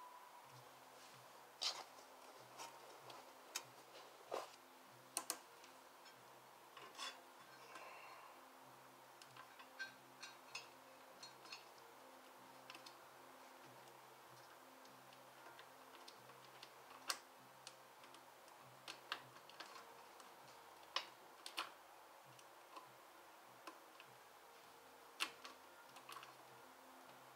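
Irregular light clicks and clinks of hand tools and metal parts being handled during work on a motorcycle, spaced a second or more apart, over a faint steady hum.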